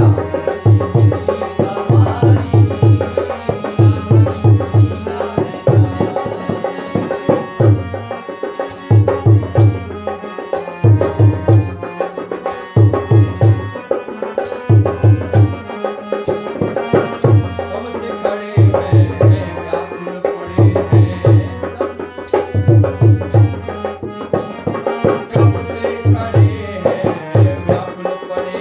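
Harmonium playing a devotional bhajan melody over a dholak, whose deep bass-head strokes and crisp treble slaps keep a steady, repeating rhythm.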